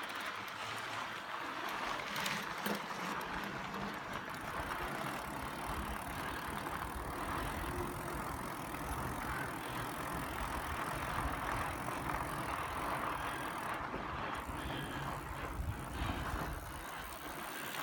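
A bicycle rolling along, with a steady noise from the tyres on the road surface.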